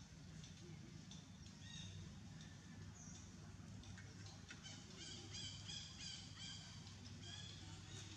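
Faint, high-pitched chirping animal calls over a low steady hum, with a quick run of short chirps about five seconds in.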